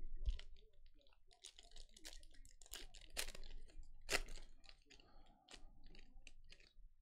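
Foil wrapper of a football trading-card pack crinkling and tearing as it is ripped open by hand: a run of sharp crackles, with two louder tears about three and four seconds in.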